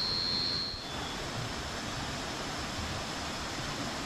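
Steady rushing noise of a waterfall, with a thin, continuous high insect trill that cuts off abruptly about a second in.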